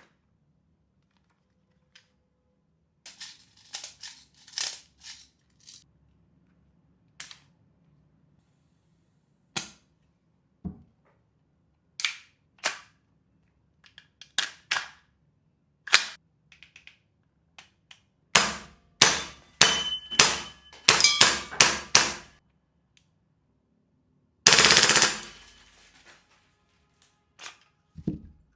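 T8 SP System EMG Colt MK18 Mod1 gas blowback airsoft rifle firing: spaced single shots, then a quick string of about a dozen shots past the middle, then a short rapid full-auto burst about three-quarters of the way through.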